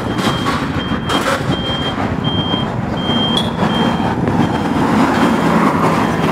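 A vehicle's reversing alarm beeping steadily, one high beep about every two-thirds of a second, over the rumble of engines and street traffic.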